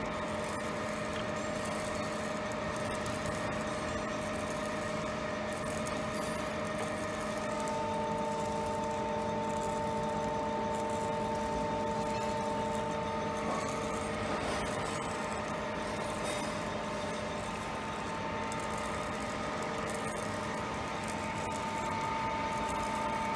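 Jones & Shipman 1311 external cylindrical grinder running, giving a steady hum made of several held tones, with the spindle running quietly. A higher tone joins about seven and a half seconds in and comes and goes after that.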